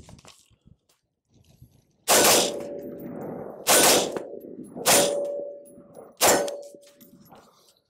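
Four semi-automatic shots from an AR-style rifle, fired singly about a second and a half apart, each followed by a steady metallic ring from a struck steel target.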